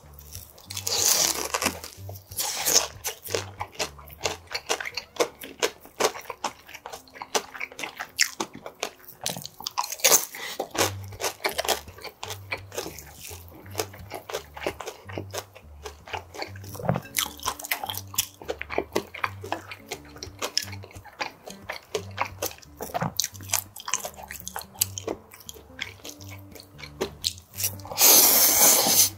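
Close-miked eating: crisp chewing and crunching of pan-fried dumplings and seaweed bibim noodles, with many small wet clicks. There is a loud burst about a second in, and a loud slurp of noodles near the end.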